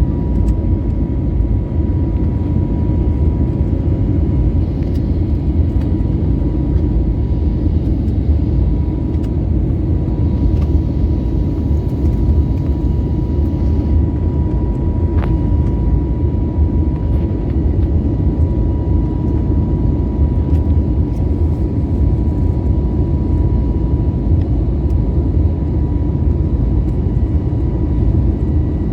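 Steady airliner cabin noise: a low rumble of engines and airflow with a faint, steady high whine running through it. There is one brief click about halfway through.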